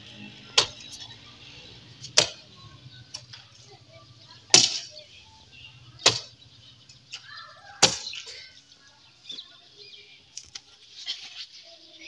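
Hand hoe striking hard, dry ground again and again while digging a planting hole: one sharp blow about every one and a half seconds.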